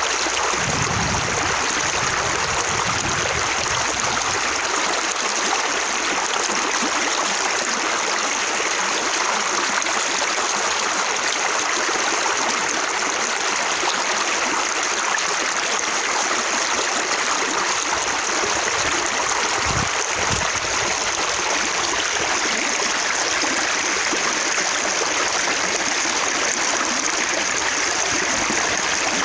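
Running water splashing and spattering in droplets, a steady unbroken rush of water. A brief low rumble comes near the start and again about twenty seconds in.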